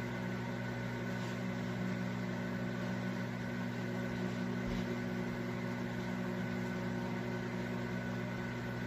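Toshiba countertop microwave oven running, a steady hum made up of several low tones.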